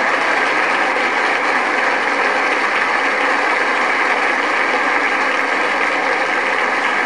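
Audience applauding steadily: dense, even clapping with no rise or fall.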